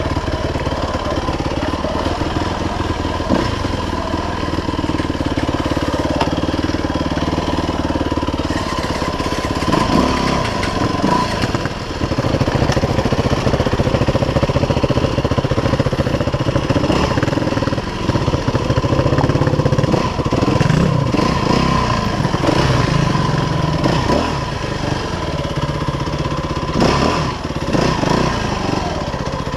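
Off-road dirt bike engine running under way on a rough trail, its pitch rising and falling as the throttle is opened and closed.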